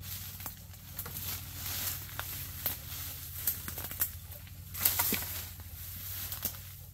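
Brush and limbs being handled: irregular rustling with sharp snaps and clicks of twigs and branches, some louder cracks about four and five seconds in.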